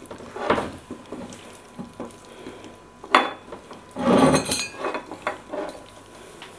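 Hand mixing raw marinated anchovies with cornflour in a plate: irregular soft squishing and clinks against the plate, with a sharp clink about three seconds in and a louder knock and scrape around four seconds.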